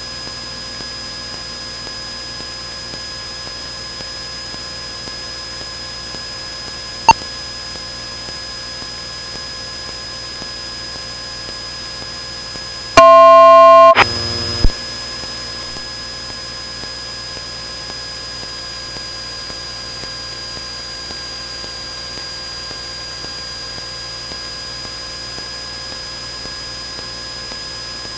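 Steady hiss and hum of a Cessna 172N's cockpit audio feed in flight, with a sharp click about 7 seconds in. About 13 seconds in, a loud electronic tone sounds for about a second, then another click.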